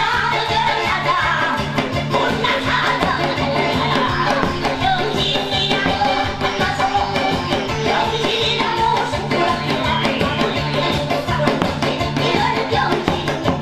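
Korean janggu (hourglass drum) beaten fast with a stick, in a dense steady rhythm, over accompanying music with singing.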